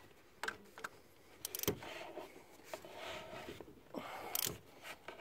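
Metal tool clicks and scrapes as a wrench tightens the mounting bolts of a replacement air-conditioning compressor on the engine. There are scattered clinks, a sharper knock about a second and a half in, and a louder cluster of clicks near the end.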